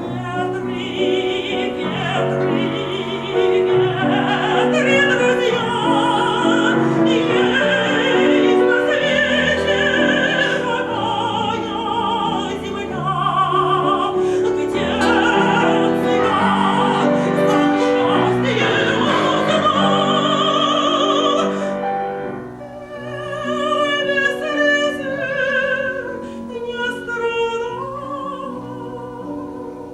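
Live performance of a Russian Gypsy song: a melody with wide vibrato over piano accompaniment. The music thins out to a lighter passage about two-thirds of the way through.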